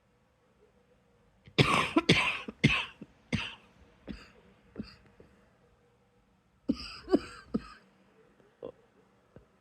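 A person coughing to bring up something caught in the throat. A fit of about six coughs starts about one and a half seconds in and trails off weaker, then a second, shorter burst of three coughs comes near the seven-second mark.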